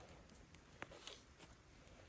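Near silence, with a few faint clicks, the clearest just before a second in.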